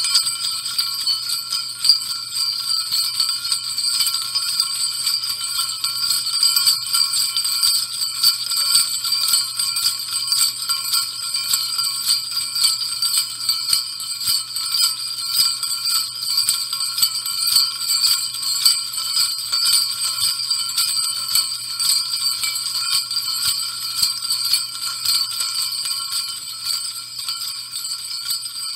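Jingle bells shaken continuously: a steady, dense jingling that eases off slightly near the end.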